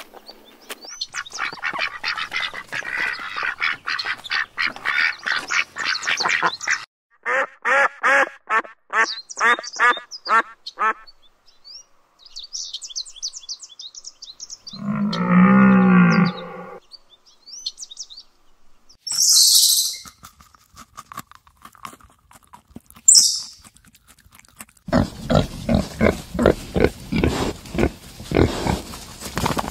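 A run of different animal calls one after another: repeated calls for the first several seconds, then a series of rhythmic pulsing calls, and a single drawn-out low call about halfway through. Near the end, piglets grunt and squeal in quick succession.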